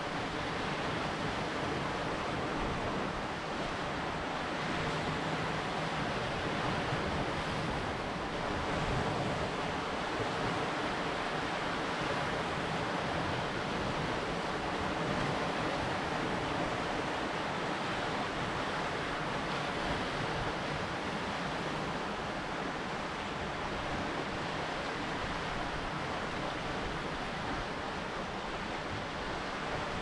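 Lake Superior waves washing steadily against a rocky shoreline, a continuous surf that swells and eases gently, with wind blowing over it.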